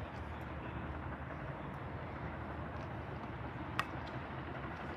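Steady low outdoor rumble with no speech, and a single sharp pop of a tennis ball being struck or bouncing on the hard court near the end.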